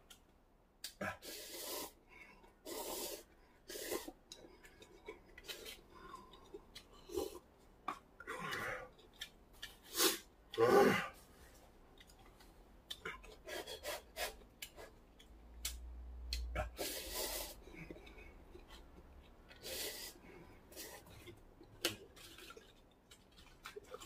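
A person slurping instant cup ramen noodles in short bursts, with sharp breaths between mouthfuls and two louder breathy bursts about ten seconds in.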